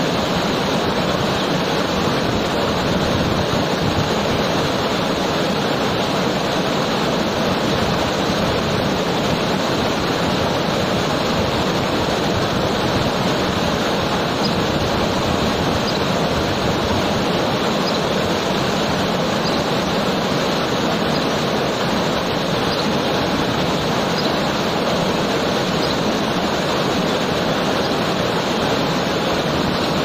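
Waterfall pouring down a rock face: a steady, even rush of falling water.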